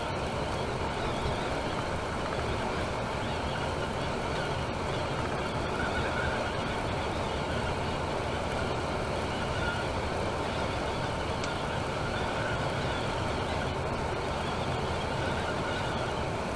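Steady road, tyre and engine noise from a Temsa Maraton coach cruising on a motorway, with an even rush and no changes.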